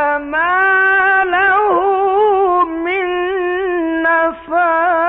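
A man's voice reciting the Quran in the drawn-out melodic (mujawwad) style, holding long wavering notes with ornamented turns and two brief breaks for breath. It is heard through an old narrow-band radio recording.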